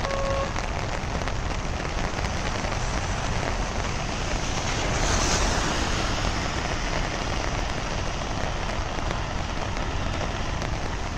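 Heavy rain pouring steadily, a dense even hiss that swells slightly about five seconds in.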